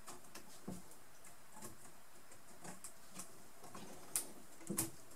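Faint, scattered light clicks and taps of a toothed rubber drive belt being worked onto a mini lathe's spindle and motor pulleys by hand, with two sharper clicks a little past four seconds and near five seconds.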